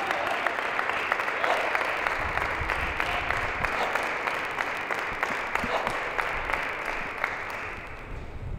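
Spectators in an arena applauding a won point, the clapping dying away near the end.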